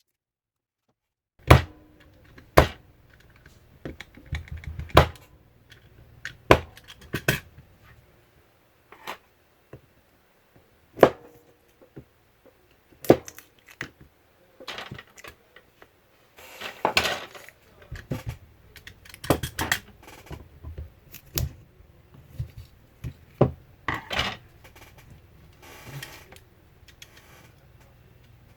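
Hard objects being handled on a work surface: irregular clicks, taps and knocks of tools and battery-pack parts, with stretches of scraping and rattling about halfway through and again near the end.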